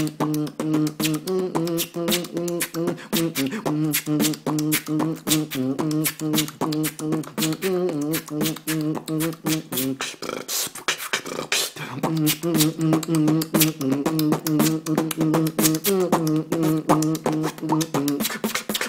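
Solo beatboxing: rapid mouth percussion with a held, hummed melody underneath. The humming drops out for about two seconds midway, leaving the percussion alone, then comes back.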